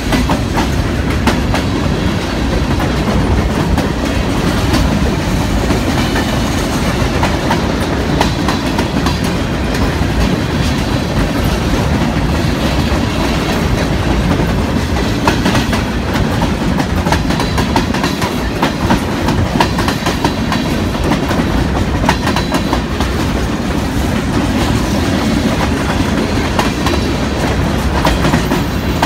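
Union Pacific freight train cars rolling steadily past, a loud, even rumble with wheels clacking over the rail joints.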